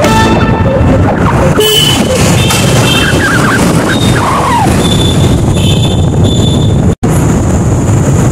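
Busy street traffic with vehicle horns tooting in short bursts over the steady running of engines and tyres. The sound drops out for an instant about seven seconds in.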